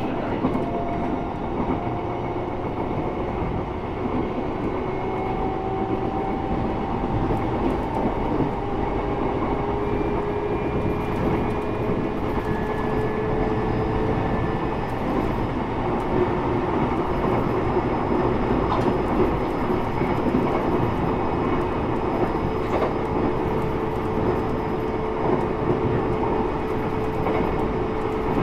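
E129 series electric multiple unit running between stations: a steady rumble of wheels on rail, with the whine of its Toyo IGBT-VVVF traction motors and gears slowly rising in pitch, and faint clicks from the track.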